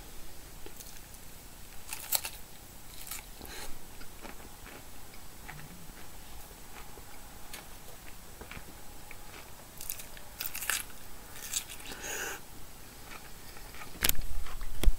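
Close-up chewing and biting of food, with scattered crisp crunches. A louder bump comes near the end.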